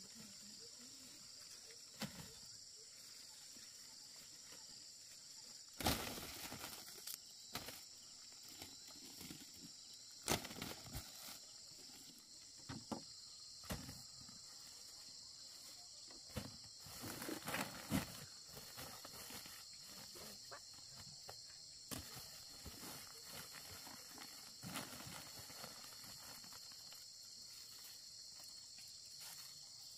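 Steady high-pitched chorus of insects, with irregular knocks and clattering rustles of dried corn cobs being handled and bagged; the loudest clatters come about six, ten and seventeen seconds in.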